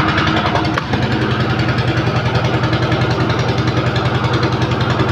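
A small engine running steadily with a fast, even pulse and a slight change in tone about a second in.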